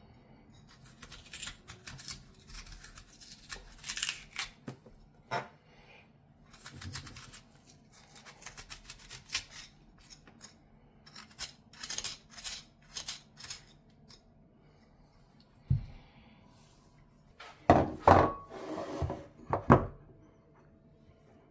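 A utensil scraping and cutting into a raw radish in many short strokes, hollowing it out. Near the end comes a knock, then louder clatters of tableware with a brief ringing.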